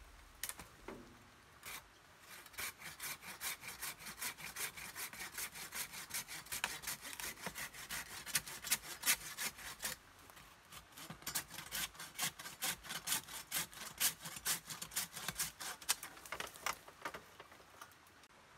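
Japanese pruning saw on a pole cutting through a live tree branch, its teeth rasping through the wood in quick back-and-forth strokes. The sawing stops briefly about ten seconds in, then resumes until shortly before the end.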